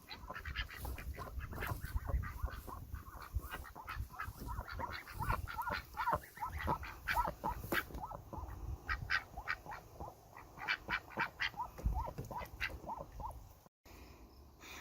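A group of ducks quacking and calling in a steady run of short calls.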